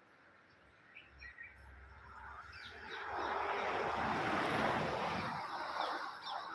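Outdoor ambience: a rushing noise swells from about two seconds in, is loudest in the middle and fades near the end. A few short bird chirps come around one second in.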